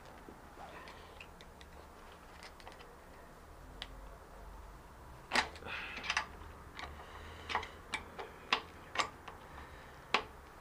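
Sharp, irregular metal-on-metal clicks and knocks of a screwdriver prying at a circlip on a spin bike's bearing assembly, worked without circlip pliers. A few light taps at first, then from about five seconds in a dozen or so louder clicks, some with a brief metallic ring.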